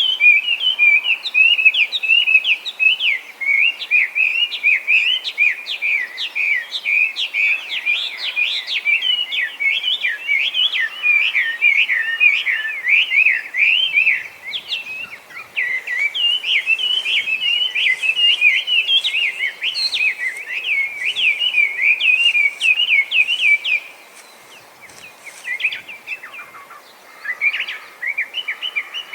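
Chinese hwamei singing: a loud, non-stop stream of rapid, varied whistled phrases that breaks off briefly about 24 seconds in and then starts again.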